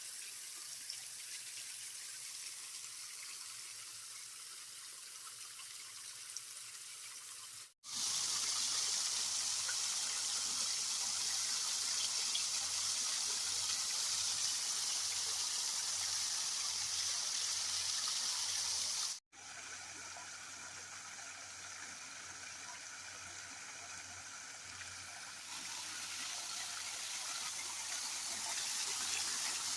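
Water running and splashing in a vegetable washing machine, cut off twice by a brief silence. In the louder middle stretch a low hum pulses steadily underneath.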